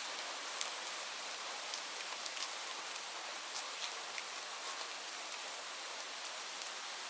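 Steady rain falling on leaves: an even hiss with many separate drops ticking sharply on the foliage.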